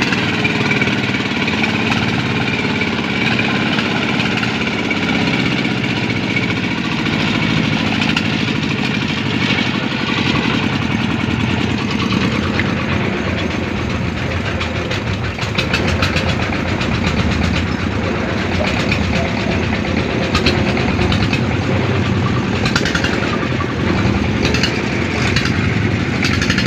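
Single-cylinder diesel engine of a công nông (Vietnamese two-wheel-tractor farm truck) running steadily as the truck is driven, with an even, rapid firing beat.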